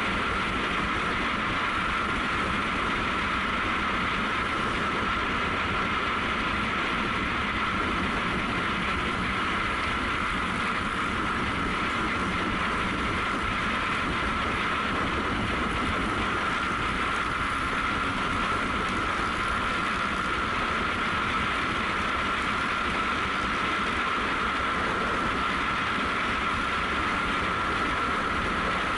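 Honda CRF250L single-cylinder four-stroke running at a steady cruising speed on asphalt, its engine drone mixed with wind and road noise as picked up by an onboard action camera, with a constant high whine over it.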